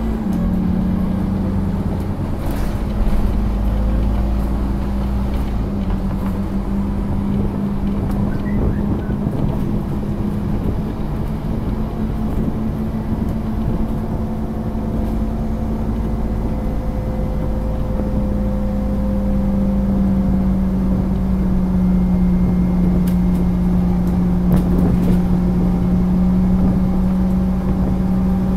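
Scania OmniCity double-decker bus's engine, heard inside the lower deck, running with a steady drone over a low rumble. The note strengthens and rises slightly about two-thirds of the way through as the bus pulls harder, with a few light rattles from the body.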